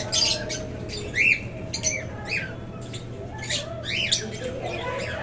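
Cockatiel chicks giving repeated short, harsh squawks, the begging calls of chicks being hand-fed. A few of the calls rise and fall in pitch.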